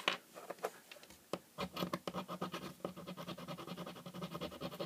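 Small screwdriver tip scraping the blackened surface of a metal electrode to bare metal. A few light clicks, then from about a second and a half in a rapid, even run of short scraping strokes.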